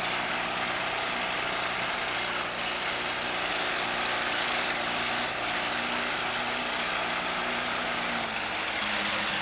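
Tiller-steered outboard motor running steadily at trolling speed, a constant drone with the hiss of water and wind over it; its pitch shifts slightly about eight seconds in.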